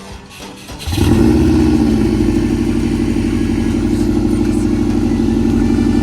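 A motor vehicle's engine running steadily at a constant pitch with an even pulse. It cuts in abruptly about a second in.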